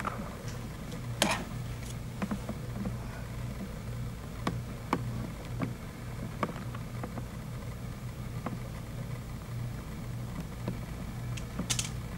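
Quiet meeting-room tone: a steady low hum with scattered small clicks and knocks, the sharpest about a second in, and a short hissing sound near the end.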